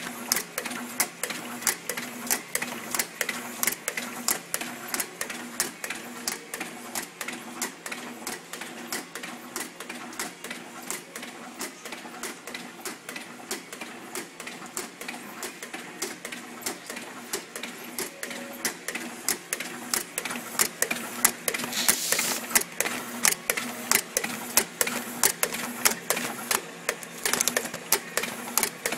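Automatic labeling machine running, labeling nested stacks of plastic pots: a fast, uneven clatter of clicks, about two or three a second, over a steady hum.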